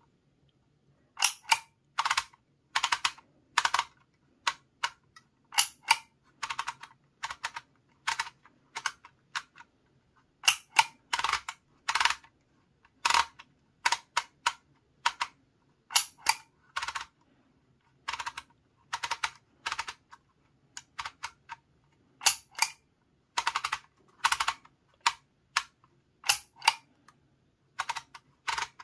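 Hand-held Dymo Organizer Xpress embossing label maker clicking as its letter wheel is turned and its handle squeezed to stamp each letter into plastic tape. Sharp clicks come in irregular clusters, often in quick pairs, with short pauses between letters.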